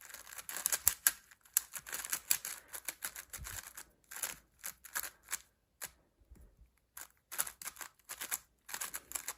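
A MoYu WRM 5x5 speedcube being turned fast by hand: rapid plastic clicking and clacking of its layers in quick bursts, with a short pause a little past the middle.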